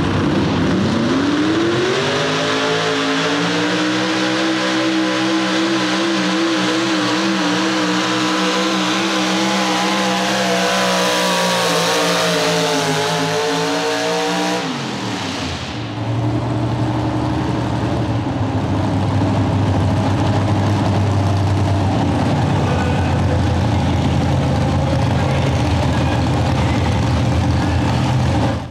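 Modified 4x4 pulling truck's big-block V8 revving up over the first few seconds and held at high revs with a wavering pitch under the load of the sled, then falling off about fourteen seconds in. After that a second pulling truck's engine runs at a low, steady idle.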